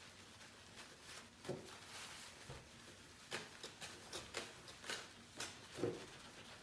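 Faint scattered clicks and taps of small objects being handled, with a slightly louder short sound about a second and a half in and another near the end.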